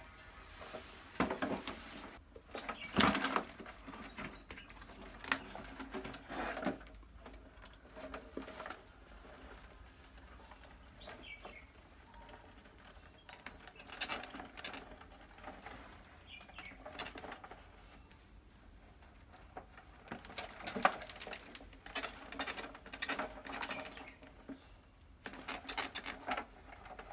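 Wire-mesh cage trap rattling and clinking as it is handled, with trapped rodents scrabbling against the mesh and plastic bottle: irregular clatters, loudest about three seconds in and again in bursts from about 21 seconds on.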